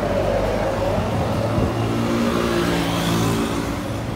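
A van passing close by on the road, its engine running with a steady note, and tyre and road noise swelling about three seconds in before easing off.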